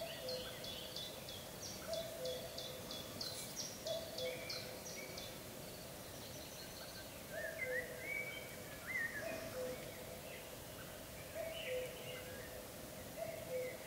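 Wild birds singing. A low two-note call falls from the first note to the second and repeats about every two seconds. Over it runs rapid high chirping during the first five seconds, and short warbled phrases come in around the middle and again near the end.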